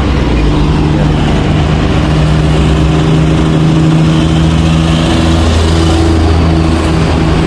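Road traffic on a wide multi-lane avenue heard from above: a steady wash of engines and tyres, with the low drone of heavy diesel vehicles passing beneath.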